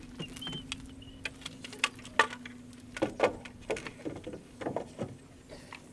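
Irregular knocks and clatters of a wooden fascia board being carried and lifted into place while a worker climbs a stepladder, over a faint steady hum.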